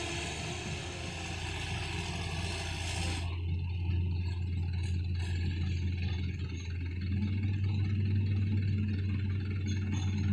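Diesel engines of a loaded palm-fruit truck and an excavator running together in a steady low drone as they work through deep mud, the engine note firming up and growing a little louder about seven seconds in. A hiss over it stops abruptly about three seconds in.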